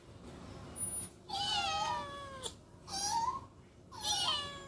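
A cat meowing three times: a long meow falling in pitch, a short one, then another falling meow. Just before the first meow, a short, very high-pitched chirp is the loudest sound.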